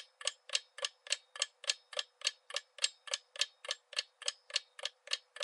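Clock-ticking countdown sound effect timing the quiz answer: steady, even ticks, about four a second.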